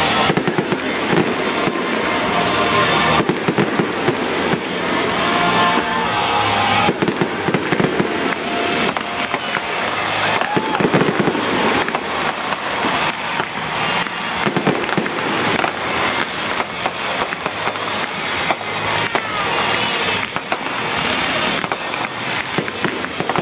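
Aerial fireworks display: a dense, continuous barrage of rapid pops and crackles from bursting shells, with music playing underneath.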